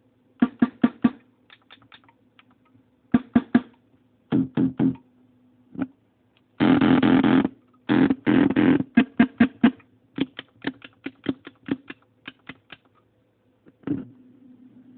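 Korg Monotribe drum hits played by hand through a circuit-bent Yamaha computer speaker amp, crunchy and distorted. Short hits come in quick groups, with a dense run of rapid hits about seven seconds in, over a steady low hum.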